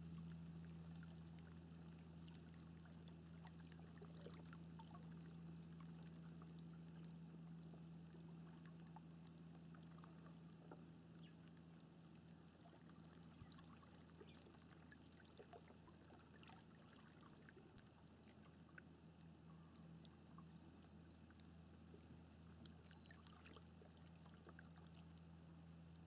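Faint calm water: soft lapping and small trickling drips, scattered irregularly, over a steady low hum.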